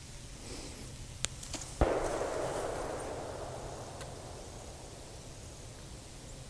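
A single distant gunshot: one sharp crack about two seconds in, followed by a long rolling echo that fades over a few seconds.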